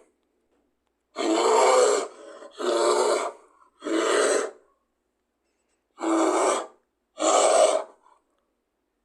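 Five short, coarse animal calls, each under a second, three in quick succession and then two more after a pause, with silence between them; sound effects presented as the calls of a creodont, an extinct carnivorous mammal.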